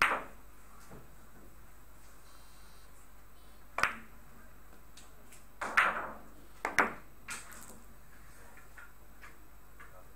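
Sharp clacks of billiard balls and cue on an Italian five-pin carom table, heard as a few separate clicks. A cluster comes about six to seven seconds in as the shot is played: the cue hits the ball, the balls strike each other and the pins are knocked over.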